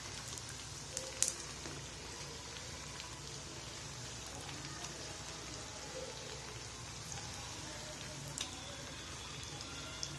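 Samosas deep-frying in hot oil in a pan, a steady sizzle. A few light clicks of the turning spoon against the pan come about a second in and again near the end.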